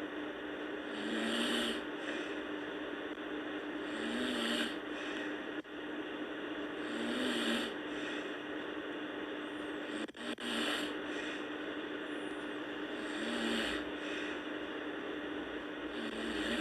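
A sleeping girl snoring, one rasping breath about every three seconds, six in all, over a steady low hum.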